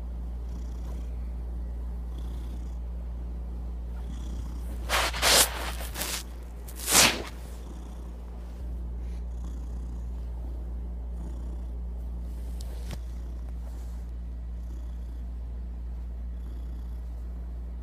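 Domestic cat purring steadily and continuously, its face right up against the microphone. About five and seven seconds in, two loud rustling scrapes of contact against the microphone rise over the purr.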